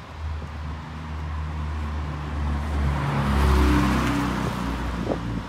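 Single-deck diesel bus pulling away and accelerating past, its engine note rising and loudest a little past halfway, with a swish of tyres on a wet road.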